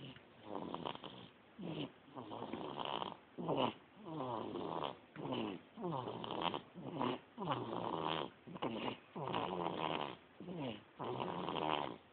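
A two-month-old baby snoring in a steady rhythm, with a snore on each breath, alternating longer and shorter ones. Each snore is pitched and slides down in pitch.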